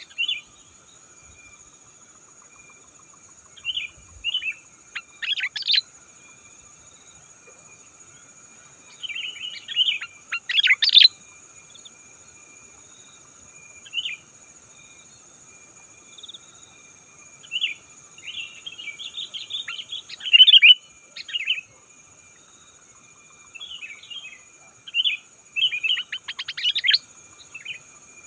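Sooty-headed bulbul singing: short bursts of bubbly, chirping phrases at irregular intervals, some several in quick succession, over a steady faint high-pitched drone in the background.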